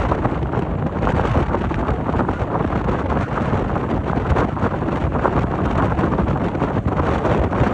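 Strong wind buffeting the microphone, a steady loud rush over the running of a ferry.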